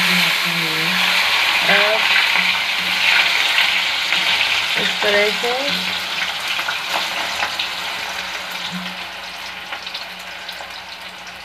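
Raw potato fries deep-frying in hot oil in an iron wok, the oil sizzling hard just after they go in and gradually settling down as the frying goes on. A few light clicks from the wire spider strainer come around the middle.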